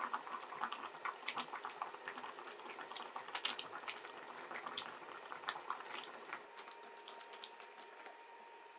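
A pot of army stew (budae jjigae) bubbling at the boil on a portable induction cooker as it is stirred, with irregular pops and spluttering that thin out about six seconds in. A faint steady tone comes in around the same time.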